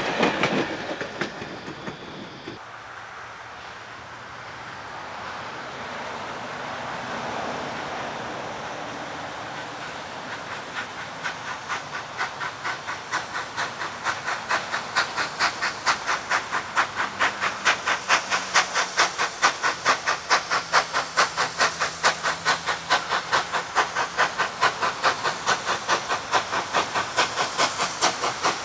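A steam locomotive approaching with a train of carriages. Its exhaust beats come through from about a third of the way in and grow steadily louder at about three chuffs a second. At the start, the tail of a passing train rolls away over the rails before a quieter lull.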